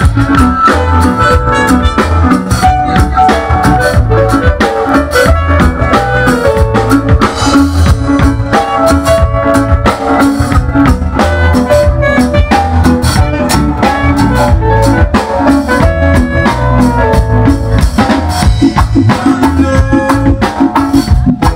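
A live band playing loudly, with no vocals: a drum kit keeps a steady beat under bass guitar, electric guitar, keyboard and saxophone.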